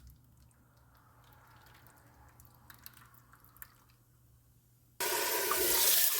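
Faint scattered clicks of handling, then about five seconds in a kitchen tap is turned on and water runs hard into the sink.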